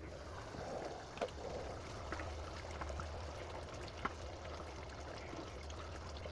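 Wooden spoon stirring thick simmering meat gravy in a pot on a gas stove: a steady wet bubbling and hiss, with about four sharp clicks as the spoon knocks the pot.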